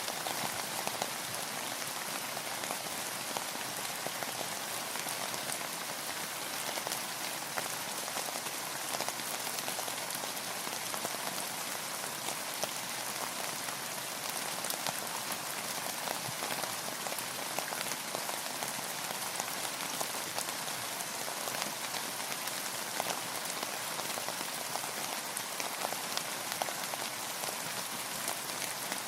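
Steady rain falling, a dense patter of many small drops hitting a surface.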